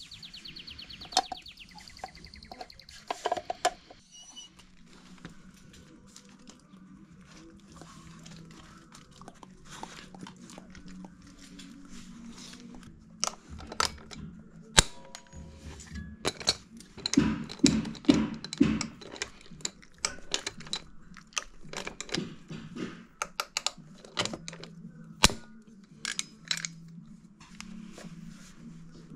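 Background music under a run of sharp clicks and metallic knocks from hand tools and a hand lever rivet gun working on the end cap of a KTM 690 exhaust silencer. The knocks are sparse at first and come thick and fast past the middle.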